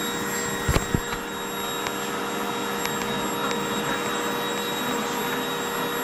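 Vacuum cleaner running steadily, with a couple of low thumps about a second in.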